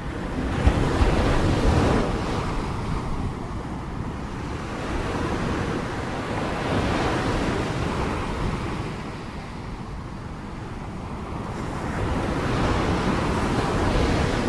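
Sea waves surging and washing ashore in slow swells, loudest about a second in, again around the middle and near the end, with wind rumbling on the microphone.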